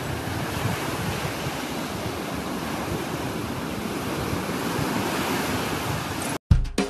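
Ocean surf washing onto a sandy beach, a steady rushing wash. About six and a half seconds in it cuts off suddenly and music with a steady beat begins.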